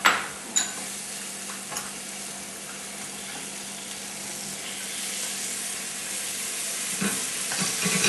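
Fried eggplant pieces sliding from a plate into a hot frying pan of coconut-water and soy sauce, with a couple of sharp utensil clinks at the start. The sauce then sizzles steadily, getting a little louder toward the end as it heats.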